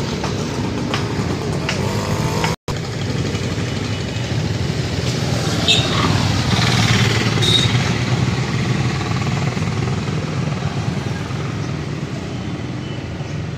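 A 1959 Victoria Vicky moped's small two-stroke single-cylinder engine idling steadily.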